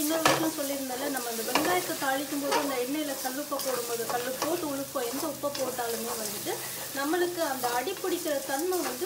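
Spatula stirring onions, chillies and curry leaves frying in oil in an aluminium kadai. The oil sizzles steadily, and the spatula makes a pitched scrape against the pan that rises and falls about twice a second. There is a sharp knock of the spatula on the pan just after the start.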